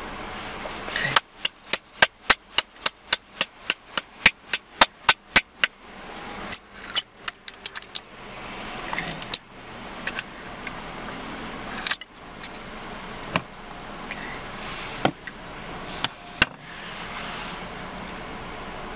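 Glass jar with a metal screw lid being handled and opened by hand. A fast, even run of sharp clicks, about four or five a second, lasts some five seconds, followed by scattered louder clicks and knocks.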